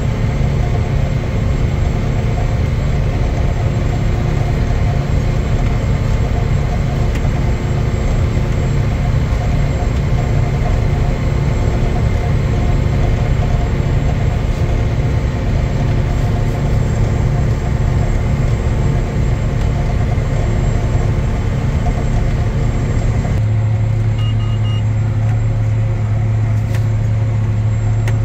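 John Deere 9300 four-wheel-drive tractor's diesel engine running steadily under load, heard from inside the cab, while pulling a 2700 mulch ripper about 12 inches deep. Near the end the sound turns to a deeper, steadier hum with less of the high rattle.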